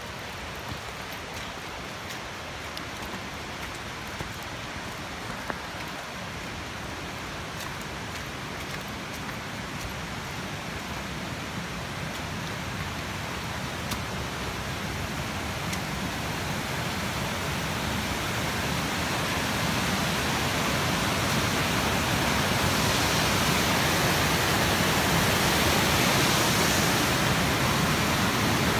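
Steady rushing of a cascading mountain creek, growing steadily louder as it is approached, with a couple of faint knocks in the first few seconds.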